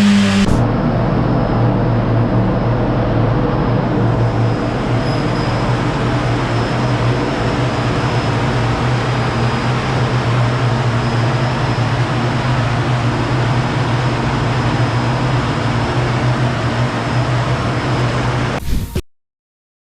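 Kawasaki ZX-10R's inline-four engine running loud through an aftermarket Jeskap exhaust, a falling rev settling into a steady drone held at one engine speed. It cuts off suddenly near the end.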